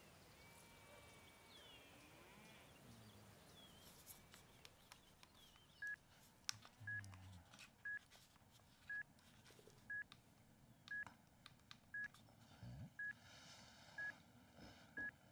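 A camcorder beeping: short, identical high beeps, one a second, starting about six seconds in and keeping time with its on-screen seconds timer. Faint clicks and a low thump of the camera being handled fall between the beeps.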